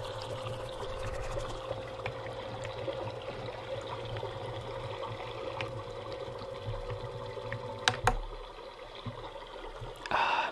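Ultrasonic humidifier running with a steady motor hum, water trickling inside it and a rain sound effect playing from its built-in speaker. About eight seconds in come a couple of sharp clicks, and the hum's steady tone stops.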